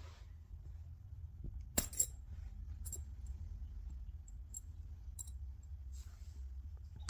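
Small glass clip-top jar's wire bail clasp being unlatched and the glass lid swung open: two sharp clinks about two seconds in, then a few lighter clicks of glass and wire as the open jar is handled.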